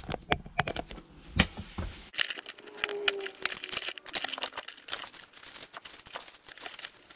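Cardboard box and plastic packaging of a shower fixture kit being opened and handled: crinkling and rustling with many small clicks and taps, busiest from about two seconds in.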